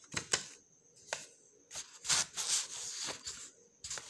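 Paper being handled: rustling and rubbing of a worksheet, with a few sharp clicks and taps near the start and end.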